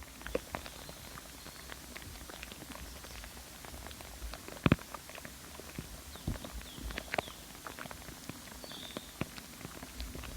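Close-up recording of moss: scattered sharp clicks and crackles over a low rumble, the loudest crack about four and a half seconds in, with faint short high chirps now and then.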